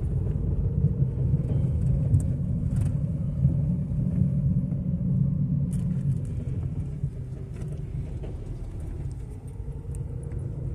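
Car engine and road rumble heard from inside the cabin while driving, a steady low rumble that eases off about seven seconds in.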